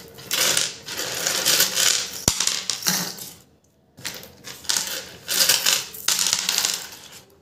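Small brass screws and speaker terminals clinking and rattling as they are scooped up by hand and dropped into a bowl, in two spells with a short pause about halfway.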